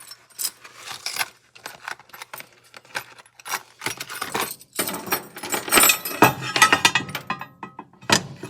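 Small metal Allen keys clinking and jangling as they are sorted through for the right size, with scattered clicks that build into a dense clatter about halfway through.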